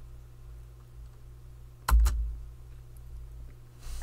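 Two quick clicks close together about two seconds in, each with a low thud, over a steady low hum.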